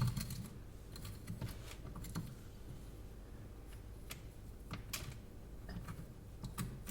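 A utensil chipping and scraping at a block of hardened chocolate: irregular sharp clicks and taps, a few to a second apart.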